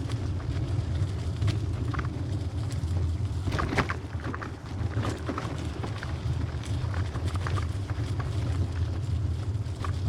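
Trek hybrid bicycle riding a dirt trail: a steady low rumble of tyre and wind noise, with scattered clicks and rattles as the bike goes over bumps.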